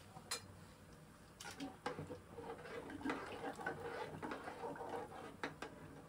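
A metal ladle stirring a thick, wet lentil mixture in an aluminium pot, with scattered light clinks and scrapes of metal on the pot and soft squelching of the mixture.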